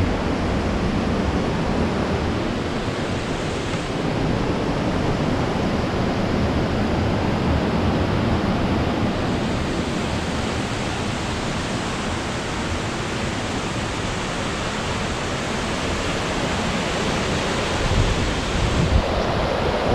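Waterfall rushing: the steady, unbroken noise of water pouring over the rock ledges of Fukiware Falls.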